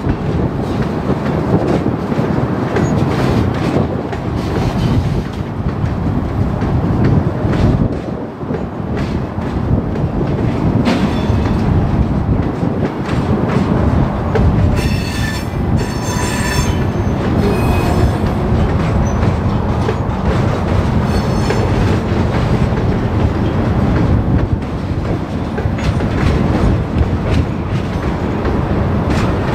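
Freight train cars rolling past on steel wheels with a steady rumble. The wheels squeal for a few seconds about halfway through and briefly again a little later.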